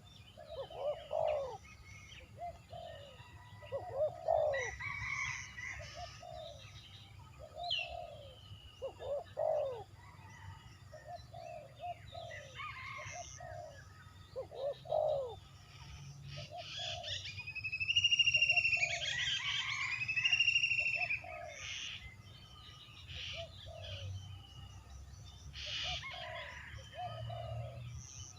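Birds calling: short, low cooing notes repeat all through, joined by a louder run of higher, arching chattering calls about two-thirds of the way in.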